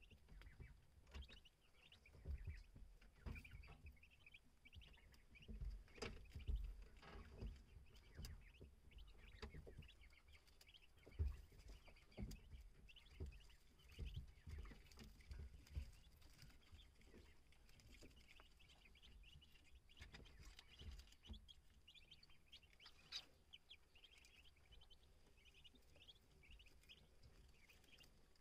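Newly hatched ducklings peeping faintly, many short high cheeps overlapping, with soft bumps and rustling as they shift about in the straw and down.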